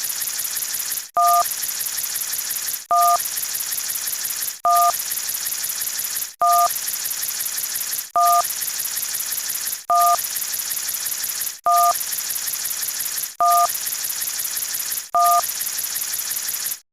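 Telephone keypad touch-tone, a two-note beep matching the keypad's "1" key, sounding nine times about every one and three-quarter seconds. A steady hiss with a thin high whine fills the gaps between beeps.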